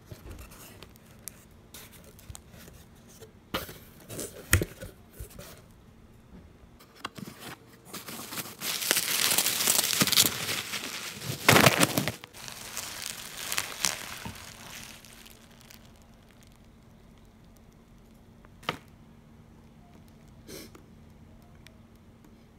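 Plastic packing material in a cardboard box rustling and crinkling as it is handled and pulled out, with scattered clicks and crackles. It is loudest for about four seconds in the middle, then fades, with one sharp click later.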